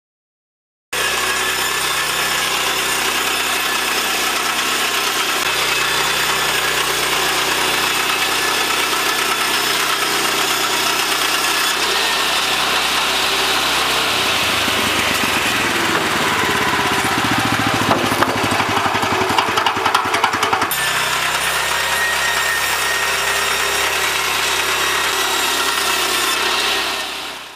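Honda petrol engine of an Altai-007A edging saw running steadily at speed. For several seconds in the middle the saw rips lengthwise through an unedged board, adding a rough, rattling cutting noise; then the engine runs on alone and fades out at the end.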